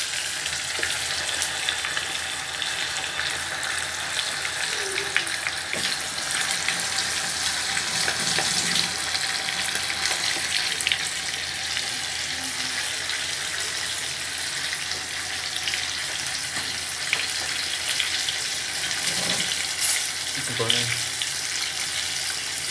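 Battered chicken pieces deep-frying in hot oil in a metal pot: a steady sizzling hiss dotted with small crackles and pops.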